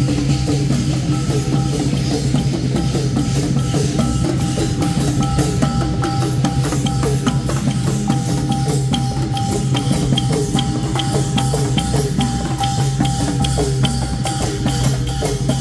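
Thai klong yao long-drum band playing: long drums, a big drum and small hand cymbals beat a steady, driving rhythm, with a sustained melody line over it.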